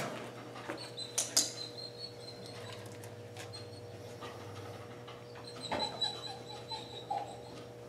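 Dog whining softly in thin, high-pitched whines, briefly about a second in and again for nearly two seconds near the end, with a couple of light taps about a second in.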